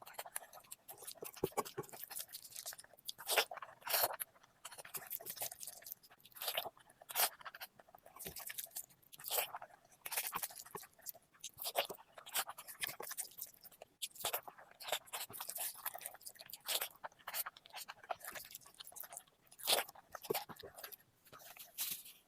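Close-up chewing and crunching of food, an irregular run of crackly bites and mouth sounds.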